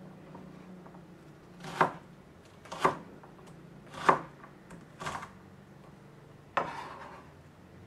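Kitchen knife chopping onion on a plastic cutting board: five separate knocks about a second apart, the last one drawn out a little longer.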